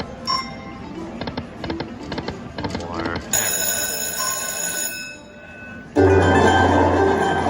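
Slot machine sound effects: reels spinning to a run of quick clicks, a short rising tone, then a ringing, bell-like chime for under two seconds. About six seconds in, a loud jingle starts over a low steady hum.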